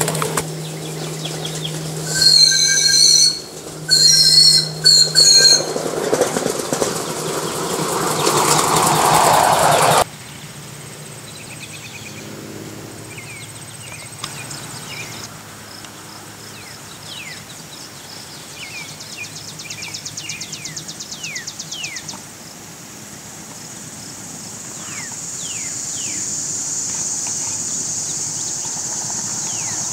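Live-steam ride-on model of a Chicago South Side elevated steam locomotive running on its track, with two loud, high-pitched sustained blasts about two and four seconds in. After about ten seconds it goes quieter, with scattered short falling chirps, a brief rapid beat near the middle and a steady high hiss toward the end.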